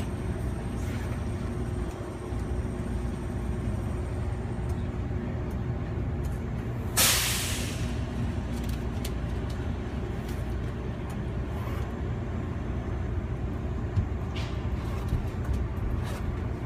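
Steady low hum of an airport people-mover tram standing at its station. About seven seconds in, a short loud hiss of released air, then a sharp click about fourteen seconds in.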